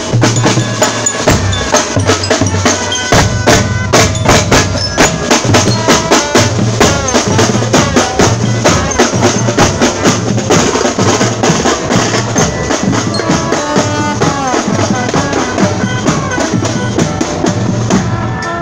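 Marching band playing in the street: bass drums and snare drums keep a steady marching beat with rolls, under brass with trombones carrying the tune.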